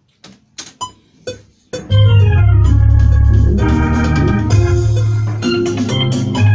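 Electronic keyboard playing an organ-like sound: four separate notes, then from about two seconds in, held chords over a heavy bass.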